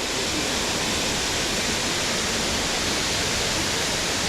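Steady rushing roar of a tall waterfall, an even wash of falling water with no breaks.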